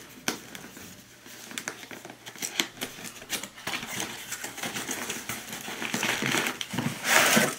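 Packaging being handled as the power supply's modular cables are taken out in their bag: crinkling and rustling with scattered light clicks and taps, growing louder near the end.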